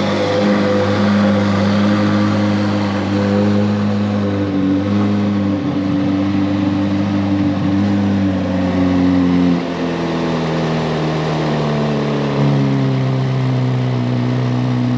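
Chevrolet Corvette Z06's V8 engine idling steadily. The idle speed steps down about two-thirds of the way in and drops again a few seconds later.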